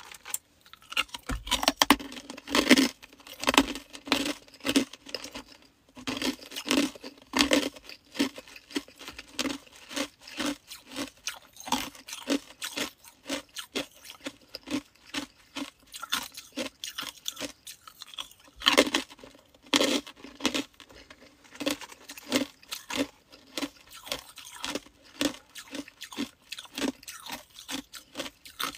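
Chunks of hard ice being bitten and chewed close to the microphone: a continuous run of sharp, crisp crunches, with louder bursts of bites a few seconds in and again about two-thirds of the way through.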